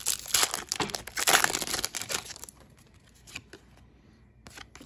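Foil wrapper of a Pokémon trading card booster pack being torn open and crinkled by hand: a dense crackle, loudest about a second in, that dies down after two and a half seconds, followed by a few faint clicks.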